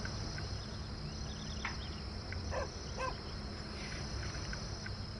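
Outdoor ambience: a steady, high insect drone, crickets, over a low hum, with scattered short bird chirps and two brief lower calls about halfway through.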